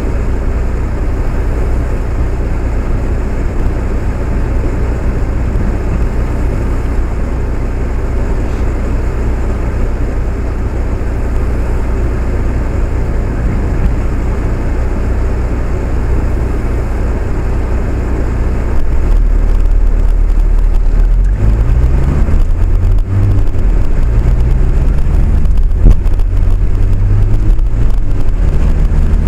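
Ride noise of a vehicle on the move: a steady low rumble that grows louder about two-thirds of the way in, with a rising whine stepping up in pitch several times as it accelerates.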